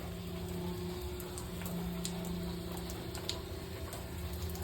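Steady low hum with scattered light ticks from a water-heater plumbing setup whose corroded expansion tank is leaking water out of its top.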